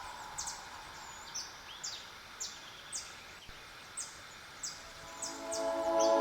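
A bird repeating short, high, down-slurred chirps every half second to a second over a faint steady hiss. Soft music fades in near the end.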